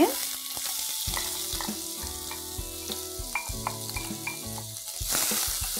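Finely chopped onions sizzling in hot oil in a kadai, a steady frying hiss that is strongest as they go in and picks up again near the end.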